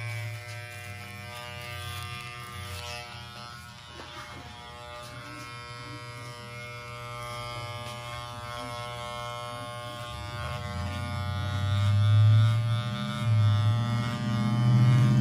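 Wahl electric hair clipper buzzing steadily while trimming hair, growing louder over the last few seconds.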